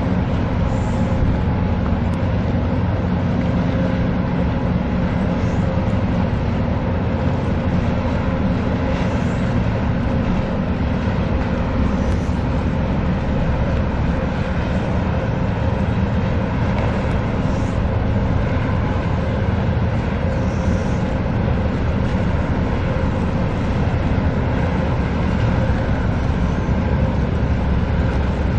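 Steady low engine drone of a ship under way, with a faint steady tone above it and a wash of noise.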